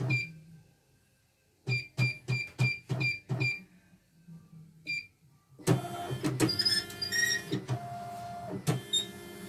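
CNY embroidery machine's control panel beeping at each button press, a quick run of short high beeps. About halfway through, the machine's motors start up with a steady mechanical whirring and humming that carries on.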